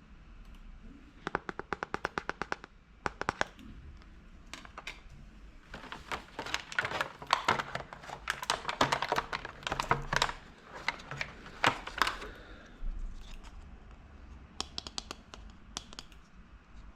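Small plastic toy pieces being handled, clicking and clattering: a quick run of even clicks, a longer stretch of dense clatter in the middle, and a few more clicks near the end.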